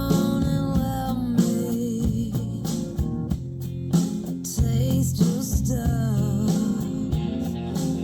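A song with a sung vocal and guitar over a steady beat, played back from a CD through Focal Sib loudspeakers driven by a Sanyo JA2503 amplifier.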